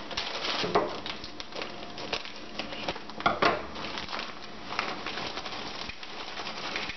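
Plastic candy bag crinkling as M&M's are shaken out of it into a glass mixing bowl, with a run of small clicks and rattles from the candies.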